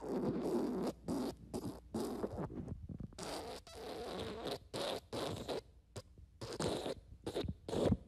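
Fart sound effect: a long string of short, raspy farts, one after another, uneven in length and spacing.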